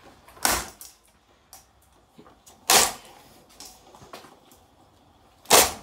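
Three heavy knocks about two and a half seconds apart, the last the loudest: blows striking a Lanson ceiling fan as it is being smashed.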